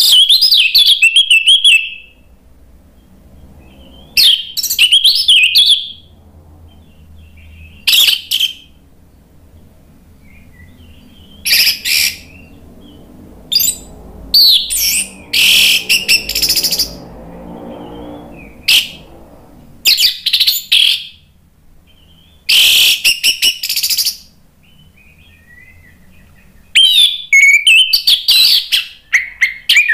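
Orange-headed thrush singing: loud phrases of quick, varied whistles, each half a second to two seconds long, separated by pauses of a few seconds, with a longer unbroken run near the end.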